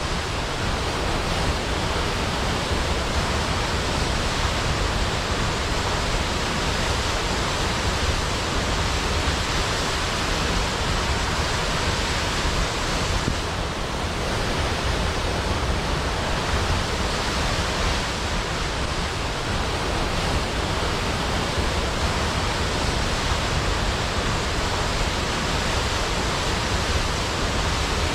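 Large waterfall pouring steadily into a pool: a dense, constant rush of water.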